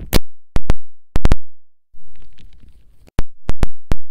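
Very loud pops and knocks from a microphone being handled and switched over: about ten sharp hits in three clusters, with dead silence between them and a short rustle in the middle.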